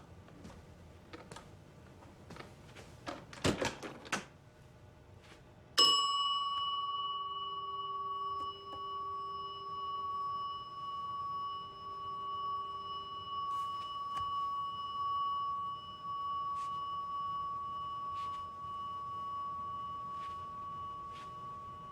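A hotel front-desk service bell struck once, its single clear tone ringing on and on, wavering in loudness but not dying away. Before it come soft steps on a hard floor and a short louder clatter.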